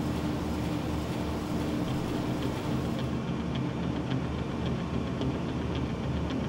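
Steady hum of running industrial plant machinery, with several low tones held throughout. In the second half comes a light, regular ticking, about two ticks a second.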